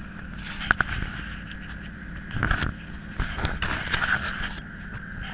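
1962 Corvette's 327 V8 running steadily. Over it, two sharp clicks about a second in, then rustling and rubbing as a hand handles the camera close to the microphone.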